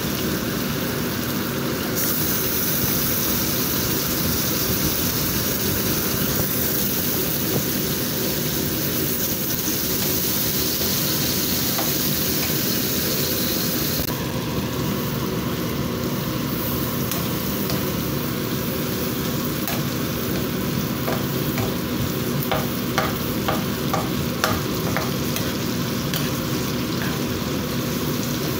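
Garlic and onion sizzling in hot oil in a frying pan with browned chicken pieces as they are sautéed and stirred with a metal spatula. A run of light clicks of the spatula against the pan comes about two-thirds of the way through.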